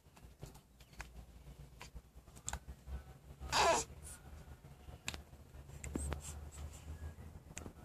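Baby making one short, sharp vocal sound with a rising pitch about three and a half seconds in, among small clicks and faint breathing noises over a low steady hum.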